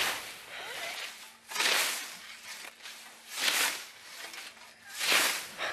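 Scythe blade swishing through tall grass in three long strokes, evenly spaced, each one cutting a swath.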